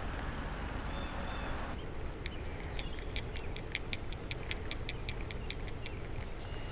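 Baitcasting fishing reel clicking in a quick, even series, roughly five sharp clicks a second, starting about two seconds in and lasting about four seconds.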